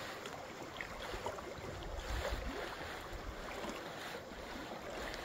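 Small waves lapping and splashing at a lake shore, with a light rumble of wind on the microphone.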